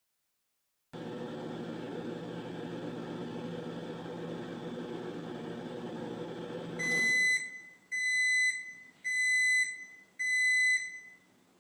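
LG over-the-range microwave oven running with a steady hum that starts about a second in and stops about seven seconds in, followed by four high beeps about a second apart signalling the end of the heating cycle.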